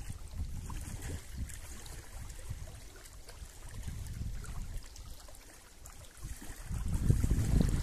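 Small lake waves lapping and splashing over the stones of a rocky shore, with wind rumbling on the microphone that swells up near the end.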